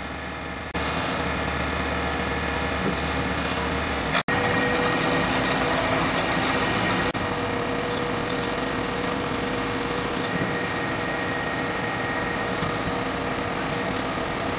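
Milling machine running steadily while a twist drill bores holes in a metal block, a constant machine hum with a faint steady whine. The sound jumps abruptly about one second in and again about four seconds in.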